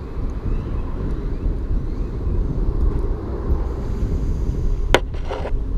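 Steady low outdoor rumble, with a sharp click about five seconds in followed by a brief hiss.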